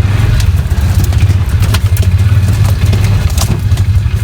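Off-road vehicle engine running steadily as it drives along, a deep pulsing drone, with scattered knocks and rattles over it.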